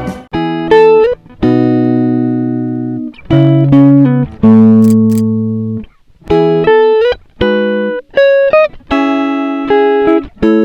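Background music of solo guitar: plucked phrases and chords left to ring out and fade, with short breaks between them.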